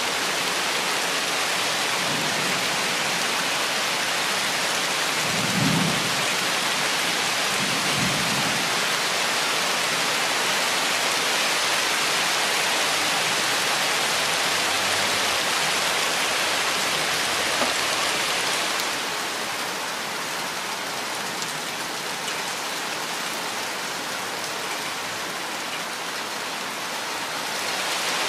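Steady heavy rainfall on forest foliage, with low rumbles of thunder about six and eight seconds in. The rain grows slightly softer about two-thirds of the way through and picks up again near the end.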